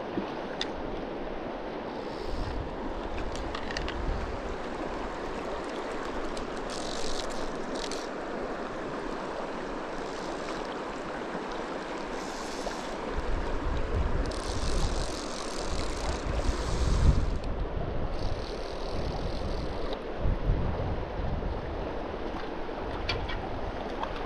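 Shallow mountain river rushing steadily over a rocky riffle, with gusts of wind buffeting the microphone in the second half.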